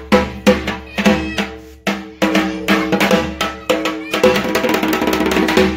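Music with a steady drum beat over held low tones.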